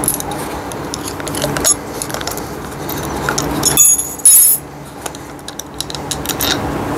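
A small steel screw and nut clinking and rattling as they are worked loose from a tricycle's push-handle part by hand, with light knocks of the parts, and a louder metallic jingle about four seconds in.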